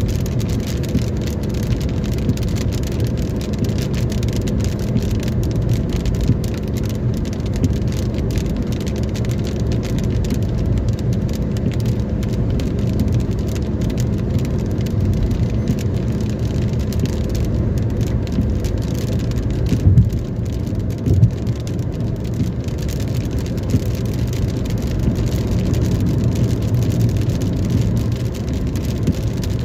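Steady hum of a car on the road with rain falling, and two brief thumps about twenty seconds in.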